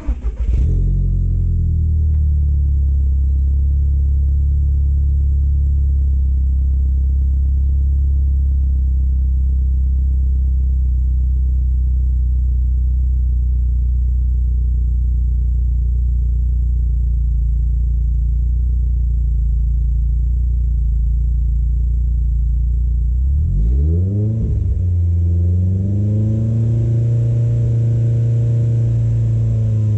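Car engine exhaust fitted with a new 3-inch-bore clamp-on stainless steel silencer. The engine fires up right at the start and settles into a long, steady, deep idle. About 24 seconds in it revs up and drops back, then it is held at a steady higher engine speed to the end.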